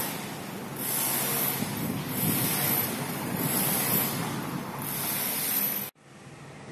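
Steady construction-site noise with a high hiss that swells and fades about every second and a half. It cuts off abruptly near the end and gives way to a quieter steady hum.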